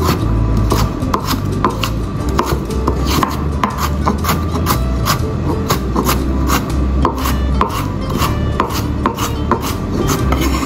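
Chef's knife dicing carrot on a wooden cutting board: a steady run of crisp knife strikes against the board, about two or three a second, over background music.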